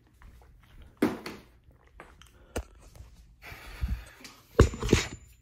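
Handling noise: a few sharp knocks and thumps with some rustling as the recording phone is moved and set down, the loudest being a close pair of thumps near the end.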